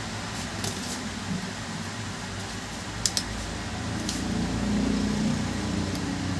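Steady mechanical hum like a fan, with a few light clicks from the plastic housing of a keypad phone being pried apart and handled; the hum swells a little about two thirds of the way in.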